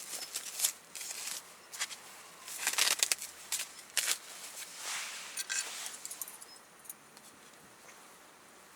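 Plastic meat packaging crinkling and tearing, with sharp handling clicks, as pork is taken out for the pot; the rustling stops about six seconds in.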